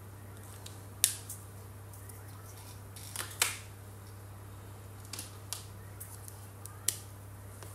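A handful of short, sharp clicks and taps from felt-tip markers and their caps being handled on a table, the loudest about a second in, about three and a half seconds in, and near the end, over a steady low hum.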